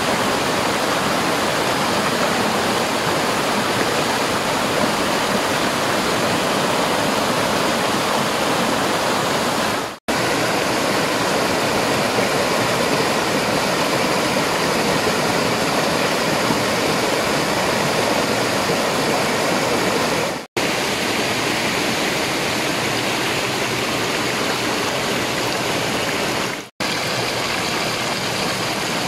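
Steady rushing of a waterfall's falling water. The sound cuts out for an instant three times.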